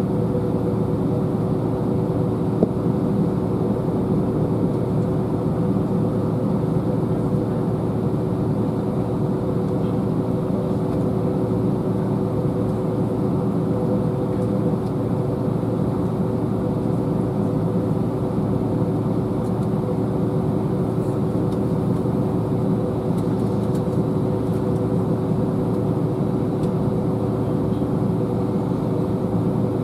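Steady cabin drone of an airliner standing with its jet engines idling, heard from a window seat over the wing: a constant low rumble with two steady hum tones, unchanging throughout.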